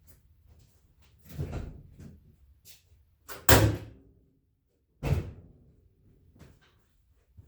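Heavy clunks and a slam from a 2004 Chevy Silverado pickup as its hood is popped open: a thud about a second and a half in, a loud sharp slam about halfway, and another clunk with a short ring-out about five seconds in.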